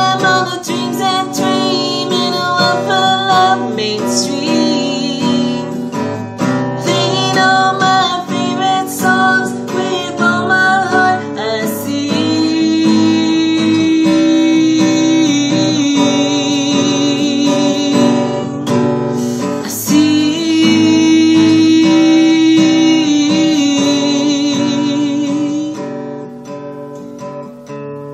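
Steel-string acoustic guitar strummed, with a man singing along. Through the middle he holds long wavering notes over the chords, and near the end the voice drops away, leaving softer strumming.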